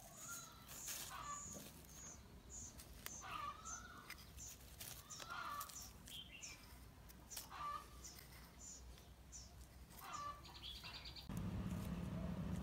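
Faint birds chirping: a steady series of short, high notes, with lower curved chirps every couple of seconds. A short buzzy trill comes near the end.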